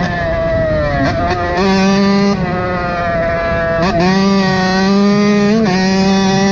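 KTM SX125 two-stroke single-cylinder engine revving high while ridden. The revs drop off at the start with quick blips, climb back and hold steady, dip again midway, then rise, with a short blip near the end: throttle changes and gear shifts.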